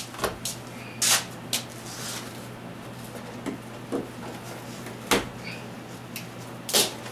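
Scattered knocks, clicks and short scrapes as model railroad layout scenery is pried and pulled apart by hand and with a hand tool, with a steady low hum underneath.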